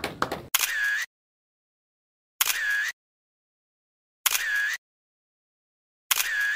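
An editing transition sound effect: the same half-second burst, with a sharp start, repeats four times about every two seconds, with dead silence between.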